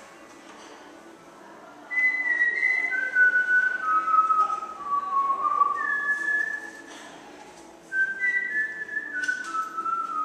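A person whistling a tune: a slow run of single held notes, stepping mostly downward, starting about two seconds in, breaking off briefly, then starting again.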